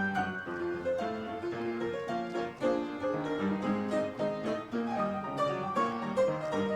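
Background music led by a piano playing a light melody, with some string accompaniment.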